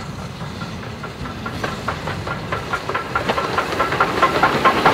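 BR Standard Class 2MT 2-6-0 steam locomotive No. 78018 approaching with its train and growing steadily louder, with a rapid run of sharp beats and hiss from the engine.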